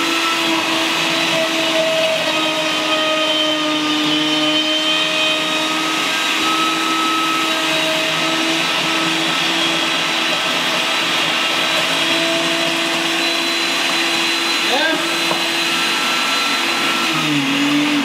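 Countertop blender motor running steadily while blending fruit with liquid nitrogen poured in, then winding down with a falling pitch near the end as it is switched off.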